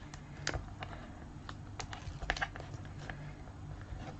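Scattered light clicks and crackles of paper and double-sided score tape being handled, as the tape's backing liners are picked at and peeled on the album pages, over a faint steady hum.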